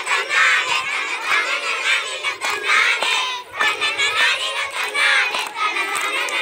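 Group of schoolgirls singing a Tamil kummi folk song in chorus, with hand claps mixed in.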